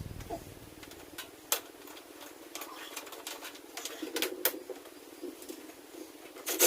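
Scattered light clicks and taps of hand work with small screws, tools and plastic parts.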